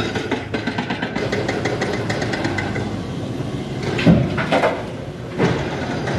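Heavy diesel engine running steadily, with a few short louder sounds about four to five and a half seconds in.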